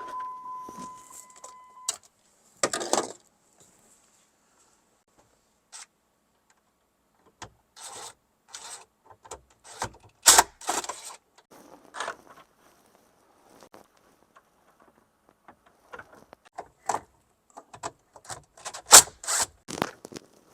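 A steady, high electronic beep cuts off about two seconds in. Then come scattered clicks, knocks, rubs and scrapes of parts being handled and worked, in irregular bursts with short quiet gaps.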